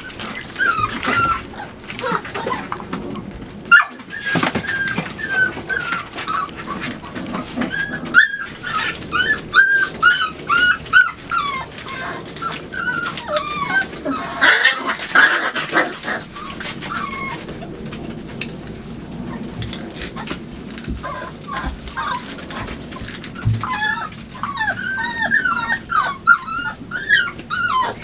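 Five-week-old chocolate Labrador retriever puppies whimpering and yipping in short, high squeaks that come in quick clusters, mixed with scattered clicks and knocks.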